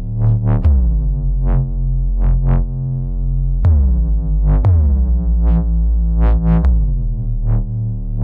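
Bass-heavy electronic DJ track for a sound check: sustained deep sub-bass tones under sharp drum-machine hits, with synth notes that slide down in pitch after each hit.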